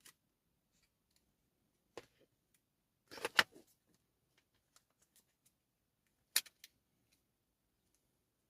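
Small clicks and rattles of hard plastic and metal parts being handled: a sharp click about two seconds in, a loud cluster of rattling clicks about three seconds in, and another sharp click followed by two lighter ones a little after six seconds.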